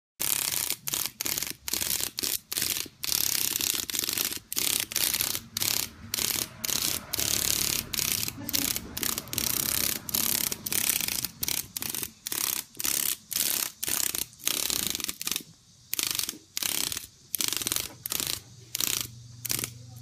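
Cicada giving its distress call in the grip of a katydid: loud, noisy buzzing in short bursts, about two or three a second, that breaks off and starts again.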